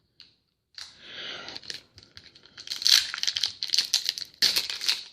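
Trading card pack wrappers being torn open and crinkled by hand: a soft rustle about a second in, building to loud, dense crackling.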